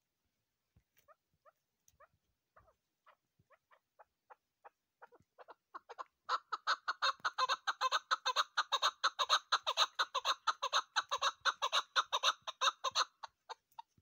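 Chukar partridge calling: a string of short clucking 'chuk' notes that starts faint and sparse, quickens and builds into a loud, rapid chatter about six seconds in, then thins out near the end.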